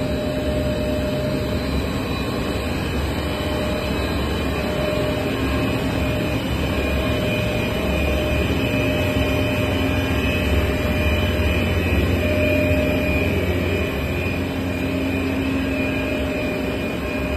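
Steady, loud machinery drone from a running PE stretch-film cast extrusion line: its extruder drive motors, gearboxes and cooling fans run together as an even rumble with a few held hum tones over it.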